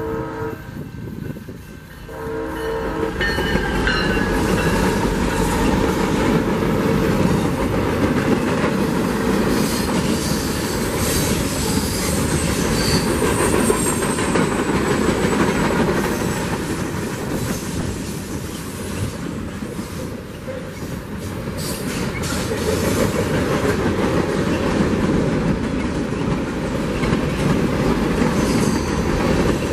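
Diesel freight train passing close by. The locomotive's horn sounds a chord at the start and again briefly about two seconds in. Then comes the steady rumble and clatter of freight cars rolling past, with thin high wheel squeals around the middle.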